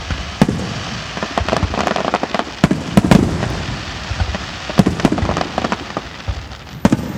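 Aerial fireworks bursting in a rapid, irregular string of sharp bangs, with a steady crackle of crackling stars between them.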